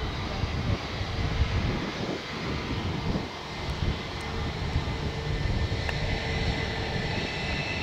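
Airbus A321's IAE V2500 jet engines running as the airliner rolls along the runway after landing. It is a steady, dense rumble with a faint steady whine on top.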